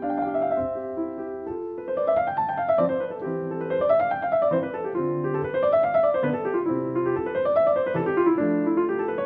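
Background piano music: a few held chords, then from about two seconds in, rolling runs of notes that climb and fall again and again.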